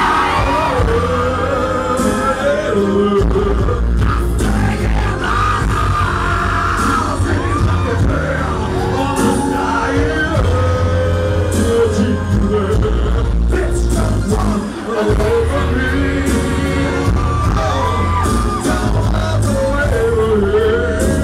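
A pop song played loud through a club sound system: a solo vocal sung into a microphone over a backing track with heavy bass.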